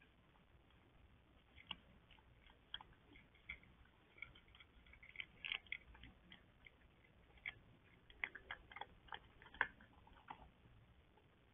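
A cat eating from a bowl close to the microphone: faint, irregular short crunches and clicks of chewing, coming thicker in the second half.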